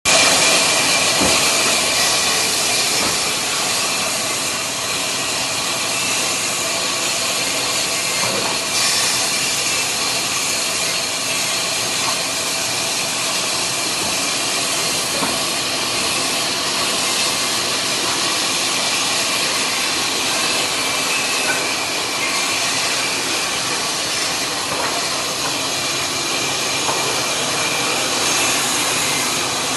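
Sawmill saw machine (ara machine) running steadily: a loud, even hiss with steady machine tones underneath.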